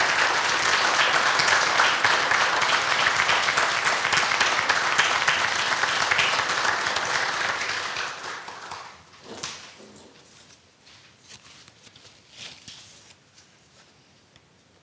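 Small audience applauding, dying away about eight seconds in; after that a quiet room with a few faint scattered knocks.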